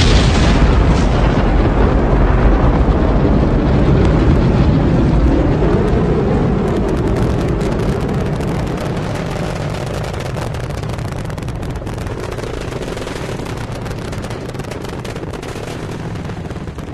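Rocket launch noise: loud, dense rumble of rocket engine exhaust with crackle, slowly fading from about halfway through as the rocket climbs away.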